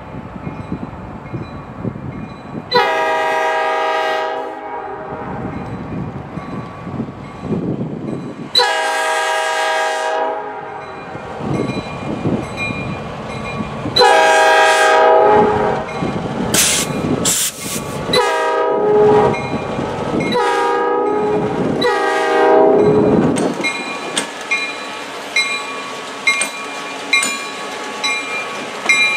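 Horn of a Norfolk Southern GP38-2 diesel locomotive sounding for a grade crossing: two long blasts several seconds apart, then a longer run of blasts broken into shorter ones that ends about 23 seconds in. In the last few seconds the locomotive's diesel engine and wheels rumble as it rolls across the crossing.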